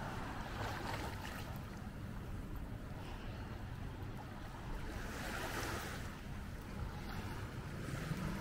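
Seaside ambience: sea waves washing in, swelling twice, over a steady low rumble of wind on the microphone.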